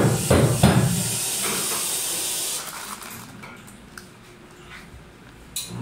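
Espresso machine steam wand hissing steadily, then cut off about two and a half seconds in, with a few dull knocks in the first second.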